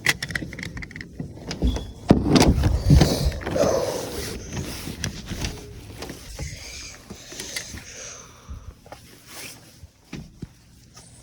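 Handling noise: rustling with a run of irregular knocks and clatter as things are moved about while searching. It is loudest a couple of seconds in and thins out toward the end.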